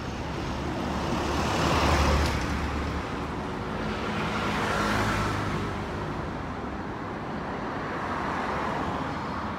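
Street traffic: road vehicles driving past, with engine drone and tyre noise swelling as cars pass about two seconds in and again around five seconds.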